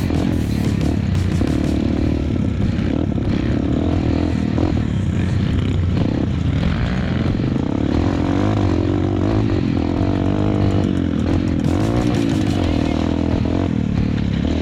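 Off-road trail motorcycle engine running under load, its revs rising and falling again and again as the bike is ridden along a rough trail.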